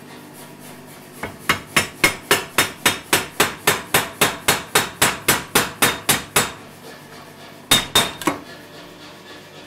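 Power hammer striking red-hot steel held in tongs on a homemade rib tool, forming a rib and two cheeks on the end of a steel bar. It runs a quick, even string of blows at about four a second for some five seconds, then stops. After a short pause come three more blows close together.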